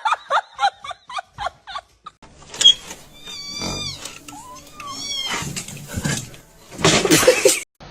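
A cat meowing several times, high calls that fall in pitch at the end, followed near the end by a short, loud, harsh cry.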